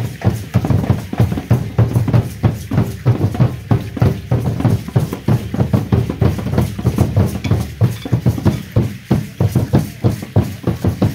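Huehuetl drums of an Aztec dance group beating a steady, driving rhythm of dense, repeated strokes.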